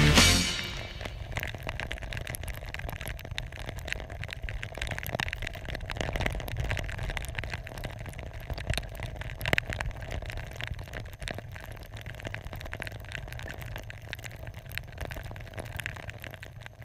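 Rainwater around a partly submerged GoPro housing, heard muffled: irregular small taps and crackles over a low rumble.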